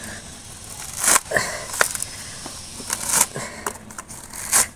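Fibrous coconut husk being pulled apart and torn off the nut by hand, giving several short, sharp rips, the loudest about a second in and near the end.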